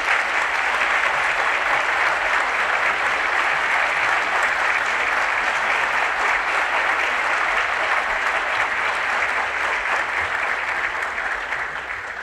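Audience applauding: a large crowd clapping steadily, dying away near the end.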